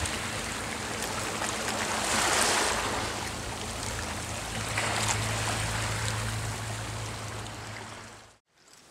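Small waves washing up onto a sandy beach, the wash swelling twice a few seconds apart, over a steady low hum, then fading out near the end.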